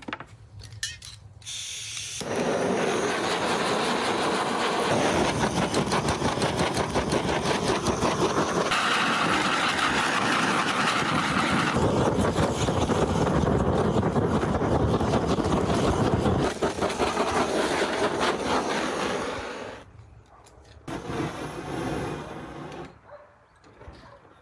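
Hand-held butane cartridge gas torch burning with a loud, steady hiss as its flame singes the skin of a plucked goose. A few sharp clicks come first, then the long run of flame, then a shorter run near the end.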